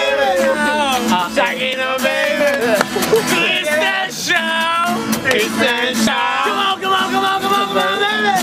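Guitar being strummed while a group of voices sings along.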